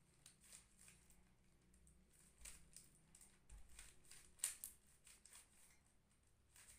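Faint, irregular plastic clicks and clatter of a Rubik's cube's layers being turned by hand, the loudest click about four and a half seconds in.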